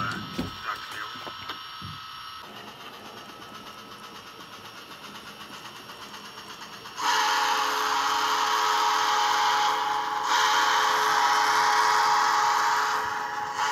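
Digital steam sound from the Tsunami2 decoder in an HO Tyco Pacific locomotive, played through its small onboard speaker. Soft, even chuffing as the engine runs, then about seven seconds in two long blasts of a hissing chime steam whistle, with a short break between them.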